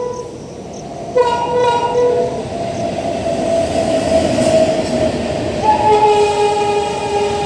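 A train's horn sounding several times over the steady rumble of a passing train: a short blast at the start, another about a second in, a long held note, then another long blast starting near the end.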